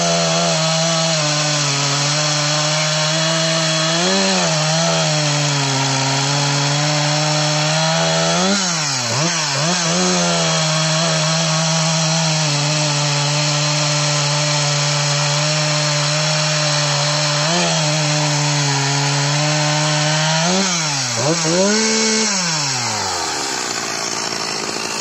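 Jonsered 2054 two-stroke chainsaw cutting through a dry, hard ash log at full throttle, its engine pitch steady under load. The pitch dips and rises briefly a few times as the cut goes on. Near the end it revs up and then falls back towards idle as the chain clears the wood.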